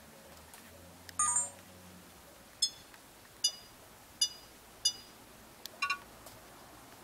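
Sony HDR-AS30V action camera beeping as its buttons are pressed to step through its menu. There is a longer beep about a second in, then four short single beeps spaced evenly, then a quick double beep near the end.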